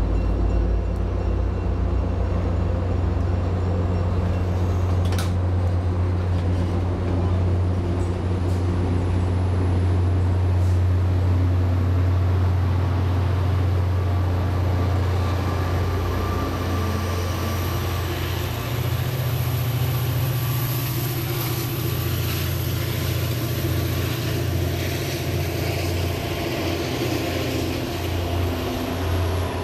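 Diesel commuter train: its engine drones steadily and low, with a faint high whine. Wheel and rail noise grows in the second half, and there is a single sharp click about five seconds in.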